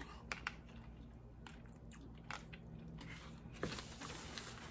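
Quiet chewing and biting on dim sum chicken feet, with a few soft clicks and smacks from the mouth.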